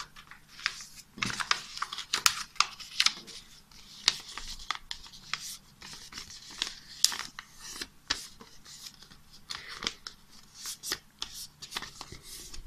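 A square sheet of paper rustling as hands fold and crease it, in many short, sharp, irregular crinkles.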